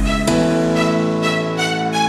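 Instrumental stretch of a backing song: sustained synth chords that change about a third of a second in, with a quick repeating run of bright high notes above them, and no vocals.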